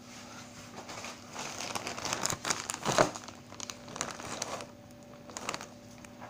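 Plastic courier mailer pouch crinkling as it is handled and set down, loudest about three seconds in, then a few lighter rustles near the end.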